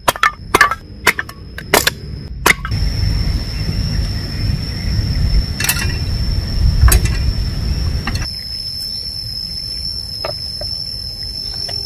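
A hatchet splitting dry kindling: about five sharp chopping strikes in the first two and a half seconds. Then a fire burning in a wood stove with a low rumble, and for the last few seconds a quieter steady sound of water boiling in a steel mug, with a steady high-pitched tone in the background.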